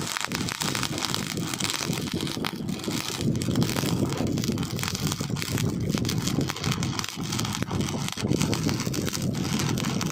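Stick-welding arc crackling and sputtering steadily as welding rods burn.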